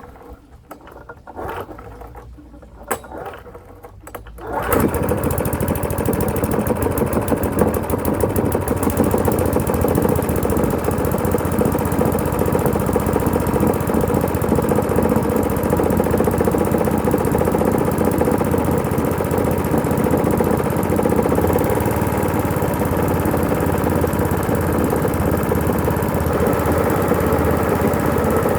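Qualcast Suffolk Punch 35S mower's 98cc all-alloy engine being started from cold on choke: a few clicks and knocks, then it catches about four and a half seconds in and runs steadily.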